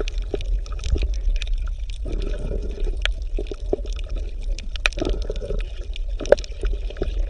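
Underwater ambience: gurgling water with many scattered sharp clicks over a steady low rumble.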